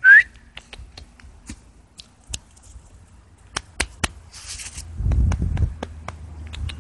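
A cat gives one short, high chirp at the very start. After it come scattered light clicks and taps, and a brief low rustle about five seconds in.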